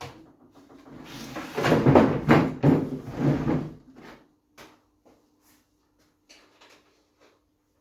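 1957 Zhiguli radio receiver tuned between stations: a loud rush of crackling static for a couple of seconds, then scattered clicks, over a faint steady hum.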